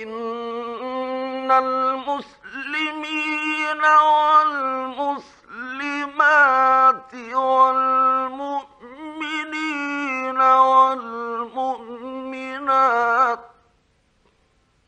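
A male Quran reciter chanting in the melodic Egyptian mujawwad style: long held notes with ornamented pitch turns, in several phrases with short breaks between them, ending about 13 seconds in.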